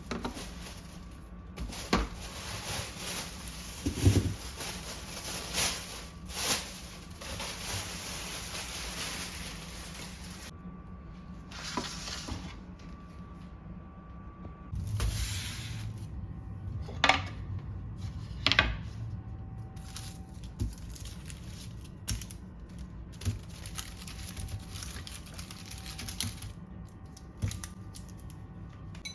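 Kitchen work: scattered clicks and knocks of dishes and utensils being handled, with stretches of soft hissing or rustling between them.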